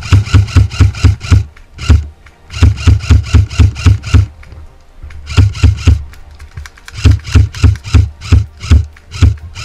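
Airsoft gun firing fast strings of shots, about six a second, in five bursts separated by short pauses, each shot a sharp crack with a low thump.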